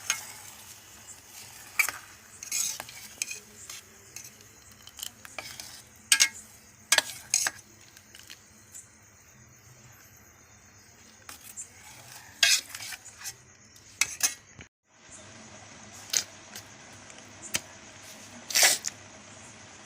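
Metal kitchen utensils and dishes clinking and knocking at irregular moments over a low steady hum.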